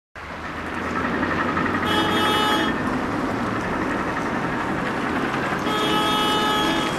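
Steady city street traffic noise, with a vehicle horn sounding twice, each blast just under a second long, about two seconds in and again near the end.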